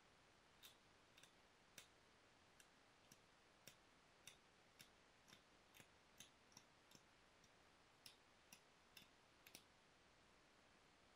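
Faint, sharp clicks of stone being knapped, small flakes snapping off a piece of Rainy Buttes stone, about two a second at an uneven pace.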